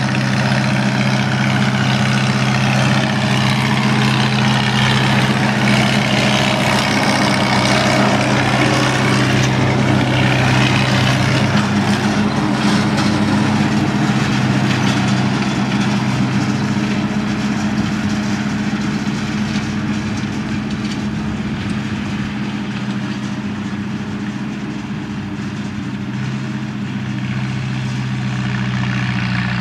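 Farmall H tractor's four-cylinder engine running steadily at an even pitch while mowing, growing fainter as it moves off and louder again near the end.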